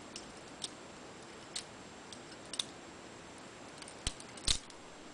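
A balisong (butterfly knife) being handled, giving a series of short, sharp metal clicks at irregular intervals. The two strongest clicks come near the end.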